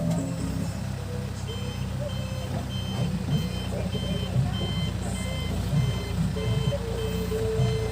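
Backhoe loader's reversing alarm beeping about twice a second over its steadily running diesel engine, the beeping starting about one and a half seconds in.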